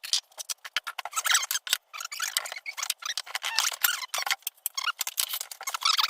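Loose metal silverware clinking and rattling as it is handled and sorted, a dense run of small irregular clicks.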